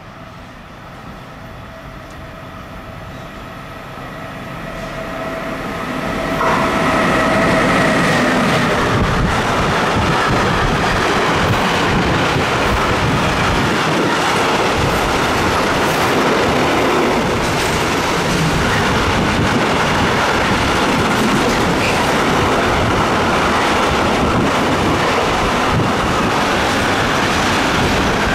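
Electric-hauled intermodal freight train passing through a station. The locomotive approaches with a steady whine, growing louder. From about six and a half seconds in, the container, tank-container and trailer wagons roll close past with a loud, steady rumble of wheels on rail and some clickety-clack.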